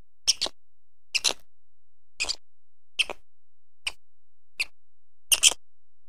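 Quokka biting and chewing a fresh green leaf: a series of short, crisp crunches about once a second, some in quick pairs.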